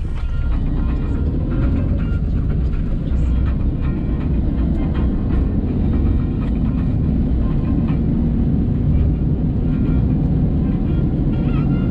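Car cabin noise while driving: a steady low rumble of engine and road, heard from inside the car, with the engine note rising briefly about a second in.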